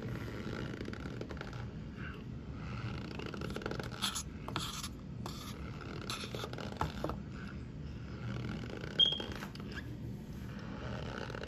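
A metal spoon scraping and pressing through powdered starch in a glass bowl, with a few crisp clicks and crunches as it digs out clumps. A short high squeak about nine seconds in is the loudest sound.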